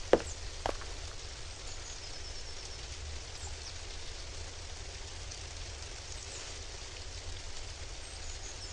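Forest outdoor ambience: a steady even hiss over a low rumble, with faint high bird chirps now and then and two sharp knocks in the first second.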